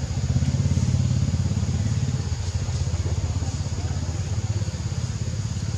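A small engine running steadily nearby: a low, fast-pulsing rumble that is loudest in the first couple of seconds and eases a little after, over a faint steady high hiss.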